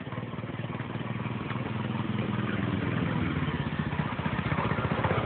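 Pit bike engine running at low speed, growing steadily louder as the bike rides up toward the camera.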